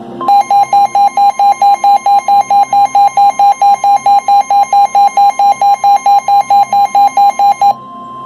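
Weather-radio alert tones: a loud electronic alarm beeping rapidly, about four or five beeps a second, over a steady high tone that is typical of the NOAA Weather Radio 1050 Hz warning alarm tone. The beeping stops near the end while the steady tone keeps sounding.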